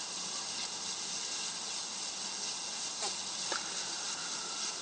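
Steady hiss of background noise, with two faint short sounds about three seconds in.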